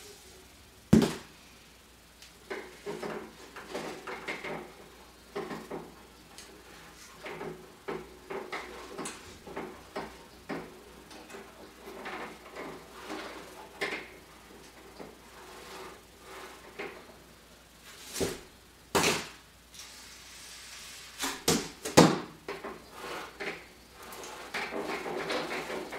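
Handling noise as tulle fabric is gathered, pulled and draped on a dress form: irregular rustling and scuffing, broken by sharp knocks, one about a second in and a louder cluster about three quarters of the way through.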